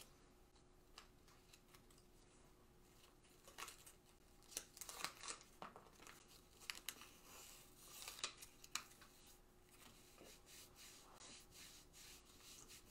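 Faint crinkling and tearing of kinesiology tape as its paper backing is peeled off and the strip is stuck on and rubbed onto the skin, a scatter of short rustles and crackles between about three and nine seconds in.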